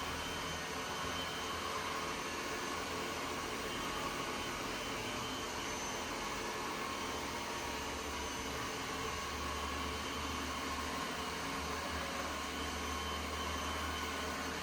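Ecovacs Deebot N8 Pro+ robot vacuum cleaner running, a steady whirring hum that holds the same level throughout.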